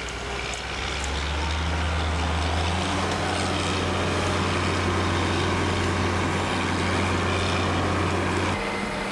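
Heavy construction crane's engine running under load as it hoists a full concrete bucket. Its steady hum rises in pitch about a second in and again about three seconds in, then drops back near the end.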